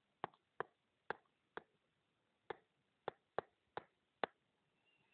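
About nine faint, sharp taps at irregular intervals: a pen tip touching down on a tablet's touchscreen as letters are handwritten.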